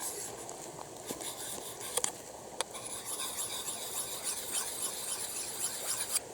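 A hatchet's edge being honed on a handheld sharpener to take off a burr: light scraping strokes of steel on an abrasive, with a few sharp clicks as the blade meets it.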